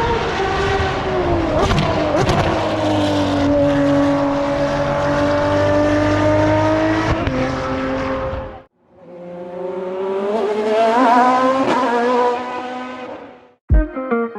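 Ferrari race car engines at high revs in two cuts: the first holds a steady pitch after a dip, then stops abruptly; the second climbs in pitch as the engine revs up, then fades. Strummed guitar music comes in near the end.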